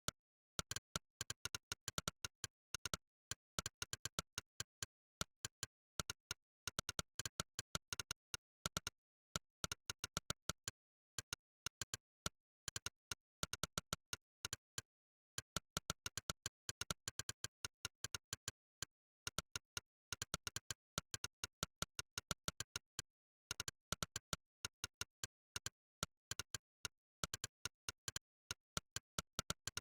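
Monkeytype's synthesized "click" keypress sound, one short click per typed key, coming in rapid runs broken by brief pauses, with dead silence between clicks.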